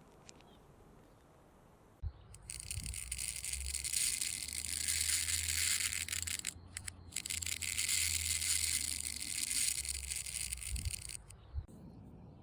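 A loud, steady hiss with a low hum beneath it, played in reverse. It starts with a click about two seconds in, breaks off briefly in the middle, and stops shortly before the end.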